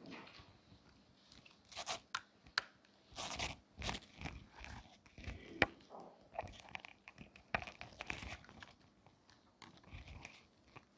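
Pages of a Bible being leafed through: irregular rustling of thin paper with crisp flicks and a few sharp ticks as pages are turned.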